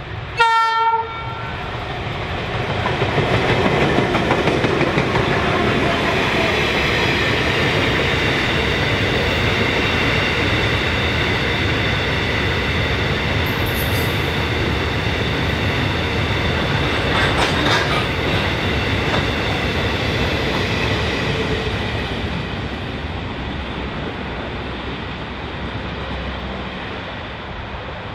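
A short train horn blast, about a second long near the start, from the leading EMD-built X class diesel locomotive. It is followed by the locomotives' diesel engines and a train of loaded hopper wagons rolling past loudly. The sound eases off over the last several seconds as the train goes by.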